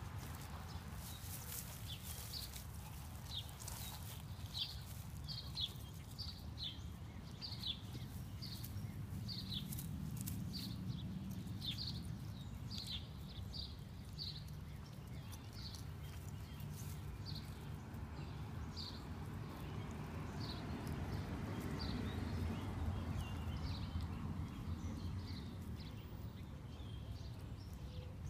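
Puppy chewing and crunching a whole boiled egg in dry straw, with sharp crackly clicks. Short high chirps repeat about once a second over a steady low outdoor rumble.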